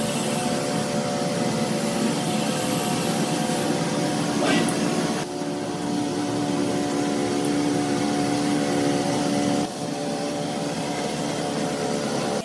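Small petrol-engine mini tiller (rotary cultivator) running steadily as it churns a wet sand-and-cement floor mix.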